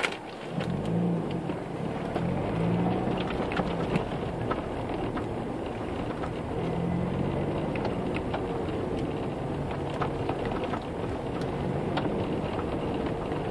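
Car being driven along a road, heard from inside the cabin: steady engine hum and tyre noise, the engine note swelling and easing a little now and then.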